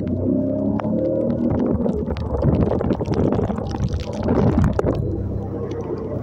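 Small motorcycle engine running while riding a muddy, flooded dirt road. The tyres splash through puddles and knock over the rough surface, loudest from about two to five seconds in.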